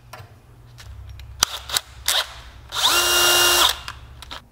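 Cordless DeWalt drill spun up briefly, its motor whine rising, holding for about a second and winding down. A few sharp clicks and knocks of handling come before it.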